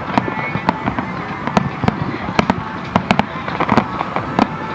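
Fireworks display: sharp bangs and cracks going off in rapid, irregular succession, several a second, over a continuous rumble.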